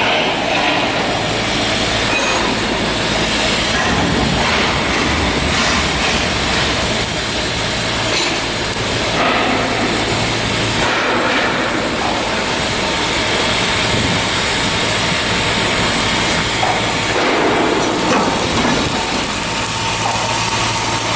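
Continuous shipyard work noise: a steady low machine hum under a dense clatter and hiss, with scattered knocks.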